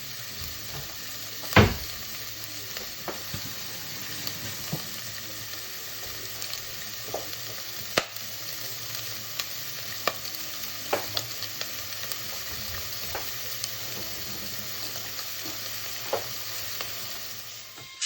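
Chicken carcass and wingtips sizzling as they brown in a hot deep pan, with scattered knocks as the pieces are moved about in the pan, the loudest about a second and a half in.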